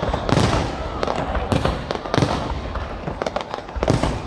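Aerial New Year's fireworks shells bursting in a steady, irregular string of booms, sometimes two close together, over a continuous rumble and crackle from the display.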